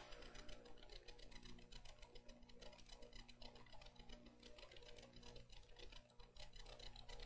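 Near silence: faint room tone with a steady low electrical hum and a faint, rapid, even ticking.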